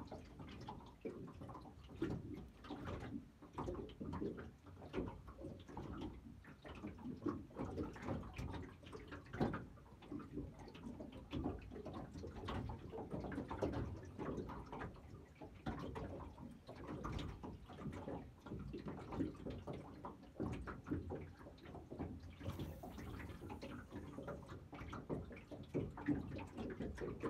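Small waves lapping and slapping against the hull of a small boat, an irregular run of soft splashes and knocks.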